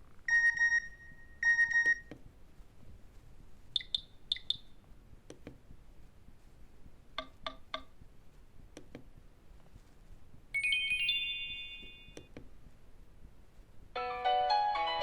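Nokia E65 mobile phone playing short ringtone previews. Two short electronic beeps come near the start, then scattered clicks, a brief chime of rising notes about ten seconds in, and a piano-like ringtone melody beginning near the end.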